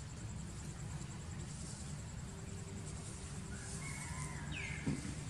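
Outdoor ambience with a steady high insect drone and a low hum throughout. A single falling bird-like chirp comes near the end, followed by one short thump.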